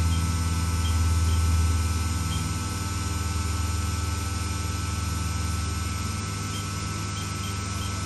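Spindle of a Haas VF-3SS vertical machining center running steadily at 6,000 RPM: a steady low hum with thin steady tones above it, a little louder for the first couple of seconds and then easing slightly.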